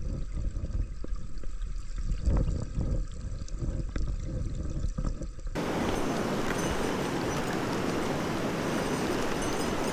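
Clear mountain stream flowing: for about the first half the water is heard muffled and low, with scattered clicks and knocks. About halfway through it switches suddenly to the steady, bright, full rushing of the stream.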